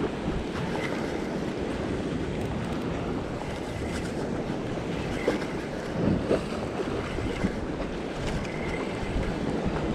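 Ocean wash surging and breaking against a rock ledge, with wind buffeting the microphone. A few short knocks come about halfway through.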